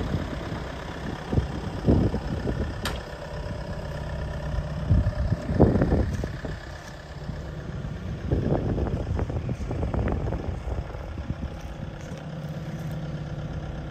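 Volvo ECR88D compact excavator's diesel engine idling steadily. Irregular low rumbles come and go over it, loudest around six seconds and again around nine to ten seconds in, with a sharp click about three seconds in.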